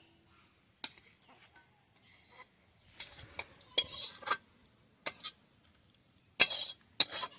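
Metal spoon scraping and clinking against a cooking pan as a cooked vegetable curry is dished out, in a few short strokes that grow louder near the end.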